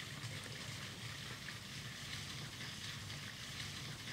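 Rainwater flowing down roof drain pipes inside the ceiling, a low, steady rushing.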